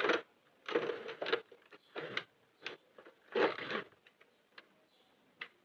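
Plastic knitting machine handled by hand: hooks lifted and yarn wrapped on a Sentro 48 circular knitting machine. Three short rustling scrapes in the first four seconds, then a few separate sharp clicks.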